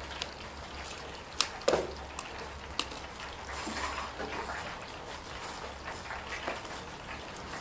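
Shells of hard-boiled eggs cracking and crinkling as they are peeled by hand, with a few sharp clicks and a low steady hum beneath.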